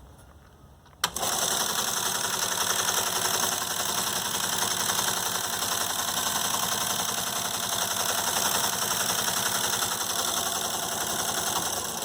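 Teletype Model 28 printer switched on with a sharp click about a second in, then its motor and mechanism running steadily. The machine is running open, with no signal loop connected.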